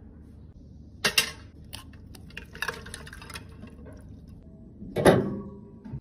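Small hard plastic and metal pieces (lipstick tubes and caps) clinking and clattering in a stainless steel tray: a few short clicks and clatters, with the loudest, longest clatter about five seconds in.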